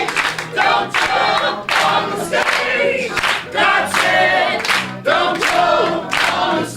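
Several voices singing a spirited gospel song together, choir-style, with piano accompaniment.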